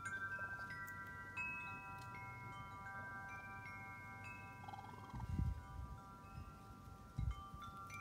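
Chimes ringing: clear metal tones at several pitches, struck one after another every second or so and left to ring on over each other. Two dull low thumps, about five and seven seconds in, are the loudest moments.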